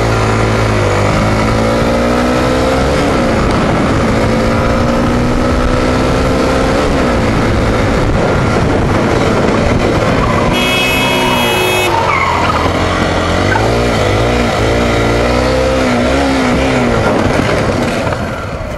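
Police motorcycle's engine, heard from the bike under hard acceleration, its pitch climbing through each gear and dropping back at every shift, over heavy wind rush on the microphone. It eases off near the end.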